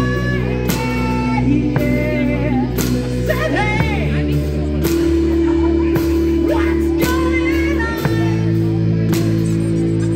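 Live rock band playing: drum kit, guitar and sustained low chords that change about every four seconds.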